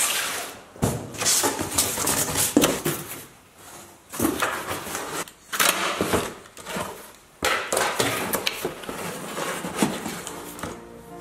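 A cardboard parts box set down on a wooden workbench with a knock, then its flaps opened and the packages inside handled: irregular rustling, scraping and crinkling of cardboard and paper with occasional sharp knocks.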